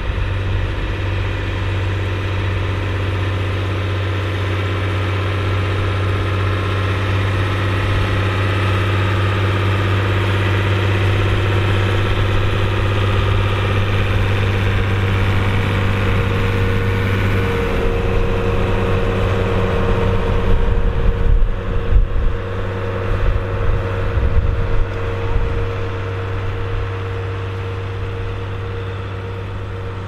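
Fiat 1500 tractor's engine running steadily under load while pulling a four-furrow plough through the soil. Past the midpoint the engine note shifts, and an uneven low rumble comes and goes for a few seconds.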